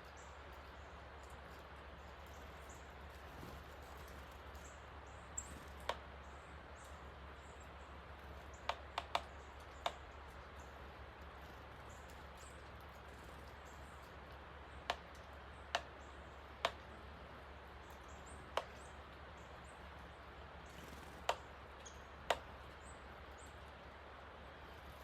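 Rushing creek swollen by heavy rain, a steady noise throughout, with about a dozen sharp, very short clicks scattered over it, some in quick pairs and a group of three.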